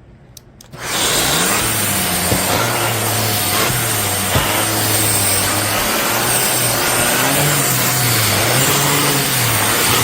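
Shark Stratos AZ3002 upright vacuum switching on about a second in and then running steadily, fitted with its pet brush, with a thin high whine over the suction noise and a lower motor hum that wavers up and down.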